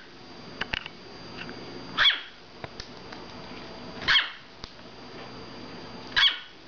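Pomeranian puppy, about six weeks old, giving three short, high-pitched barks about two seconds apart.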